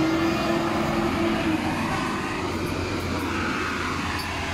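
Steady rumble of motor vehicle engines and street noise, with a faint engine hum that rises slightly in pitch near the start.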